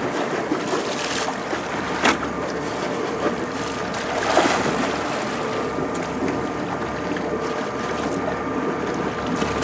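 Wind on the microphone and sea water lapping beside a boat, with a faint steady hum from the boat's engine running. Around four seconds in, a swell of splashing as the tuna thrashes at the surface.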